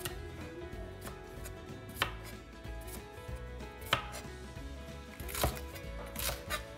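Kitchen knife chopping tomato and cucumber on a wooden cutting board: about five sharp knocks of the blade meeting the board, irregularly spaced a second or two apart, over faint background music.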